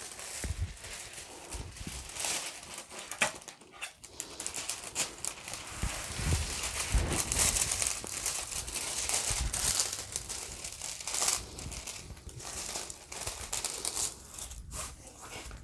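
Protective plastic film on a diamond painting canvas being peeled back and handled, crinkling with irregular small crackles.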